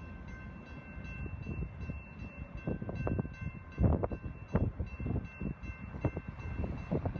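Railroad grade-crossing warning bell ringing steadily, about three strikes a second, over low rumbling and irregular thumps that get heavier from about halfway.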